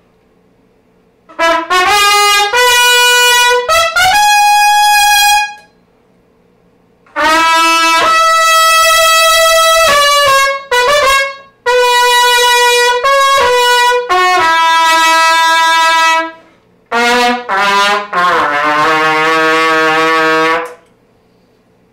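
C trumpet played solo, loud, in four phrases of separate held notes with short pauses between the phrases; the last phrase ends on a long held note.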